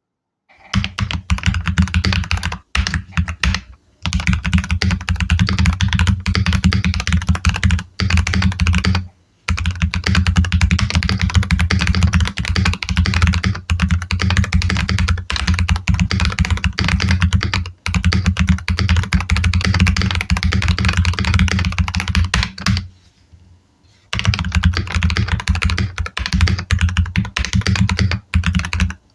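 Typing on a Keychron K10 Pro full-size mechanical keyboard, heard close to the keys: a fast, dense run of key clacks with a few short pauses and a longer break about 23 seconds in.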